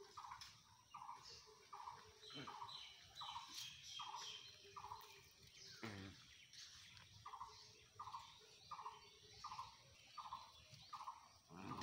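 A bird repeating a short call about twice a second, faint, pausing briefly halfway through, with a quick run of higher chirps from another bird early on and a soft knock near the middle.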